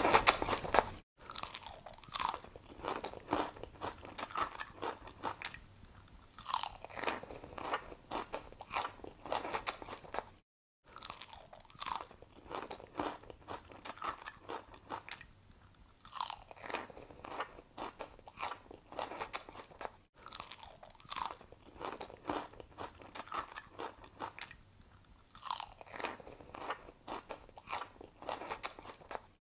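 Crunching and chewing of a dinosaur grazing on plants, as a sound effect: quick clicky bites that swell into louder clusters every four to five seconds, with two brief dropouts, about a second in and about ten seconds in.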